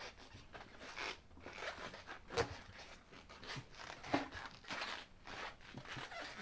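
A large Interco TSL Bogger mud tire being handled and turned around by hand: irregular rubber scuffs, rustles and scrapes, with two heavier thumps about two and a half and four seconds in.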